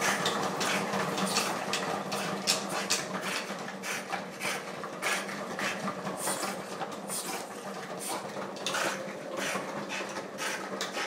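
A French bulldog walking on a dog treadmill, the paws and the running mill making a continuous run of irregular clicks and clatters over a steady low hum.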